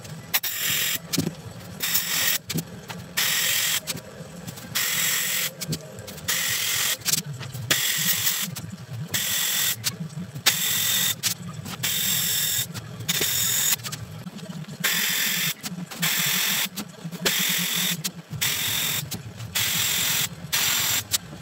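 Handheld compressed-air sandblasting gun with a catch bag, fired in repeated short bursts about a second apart, each a loud hiss of air and grit blasting rust off the steel edge of a car door. A low hum runs underneath.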